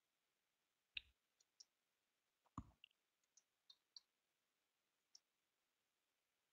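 Near silence broken by several faint, short clicks scattered irregularly, the loudest about two and a half seconds in.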